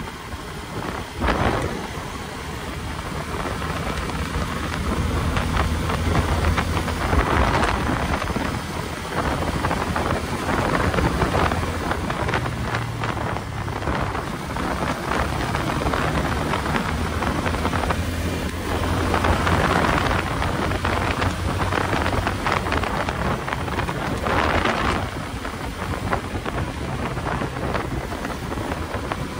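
Motorcycle engine humming at a steady cruise around 65 km/h, under heavy wind buffeting on the microphone that swells and fades every few seconds.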